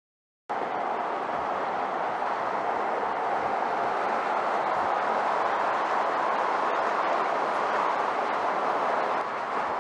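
Steady rush of tyre and road noise from a vehicle driving at speed on pavement, starting suddenly about half a second in and dropping slightly near the end.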